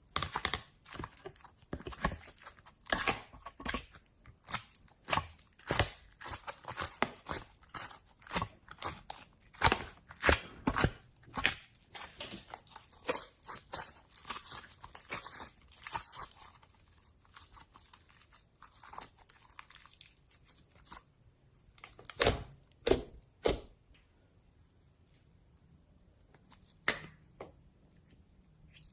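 Slime being squeezed and pressed by hand, giving dense crackling pops and clicks that thin out around the middle, with a few louder pops later and a quieter stretch near the end.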